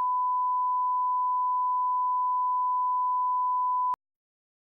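A steady reference test tone of about 1 kHz, the kind that runs with colour bars, held as one unbroken beep until it cuts off suddenly with a click just under four seconds in.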